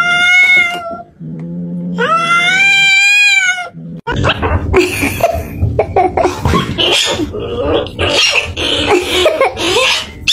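A domestic cat growling low, then giving two long drawn-out yowls, the second rising and then falling: a threat yowl at another cat. After that comes a stretch of dense, uneven mixed sounds.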